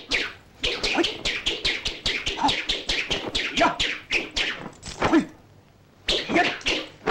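Kung fu film sound effects: a fast run of swishing whooshes from punches and kicks cutting the air, with a few short shouts from the fighter mixed in. The run breaks off for about half a second near the end, then starts again.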